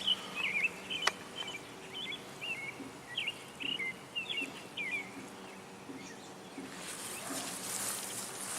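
Outdoor birdsong: a string of short, quick chirps and twitters for the first five seconds or so, with a single sharp click about a second in. Near the end a soft rustling with small ticks comes in.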